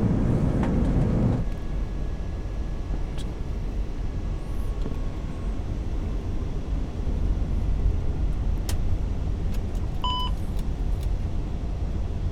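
Steady low rumble of airflow and engines on an Airbus A380 flight deck during approach, with a louder rush that eases off about a second and a half in. A short electronic tone sounds once near the end.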